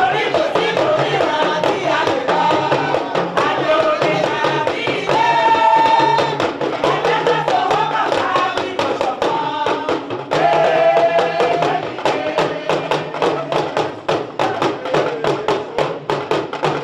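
Music with a quick, steady percussion beat and a melody line over it, partly sung.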